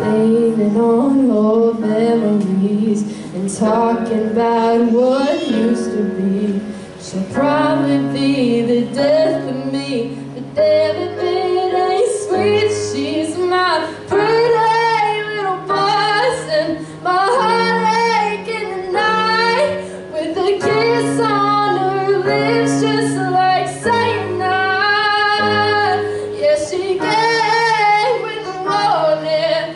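A young woman singing solo with vibrato, accompanying herself on a Korg digital keyboard that holds sustained chords beneath the voice.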